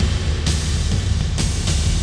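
Hockey goal song: loud heavy rock music with a pounding low end, drums and crashing cymbals.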